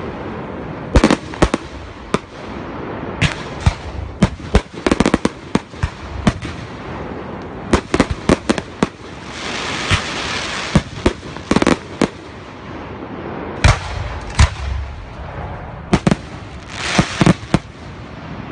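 Aerial fireworks display: a rapid, irregular series of sharp bangs as shells and comets burst. A few seconds of continuous hiss come near the middle.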